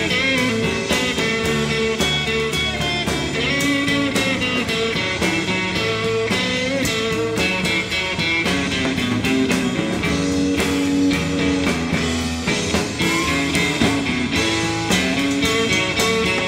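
A blues-rock band plays an instrumental passage, with an electric guitar played over bass and drums.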